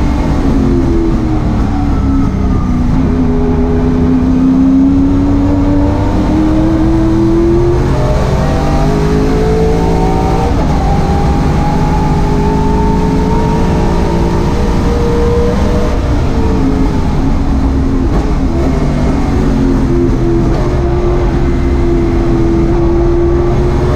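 Racing saloon car's engine heard from inside its stripped cabin at speed, the engine note climbing under full throttle and dropping back in steps. It falls off sharply about a third of the way in, climbs long and steadily, drops again about two-thirds through, then holds and builds once more near the end.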